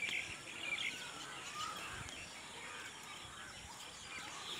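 Birds chirping in short, scattered calls over faint outdoor background noise.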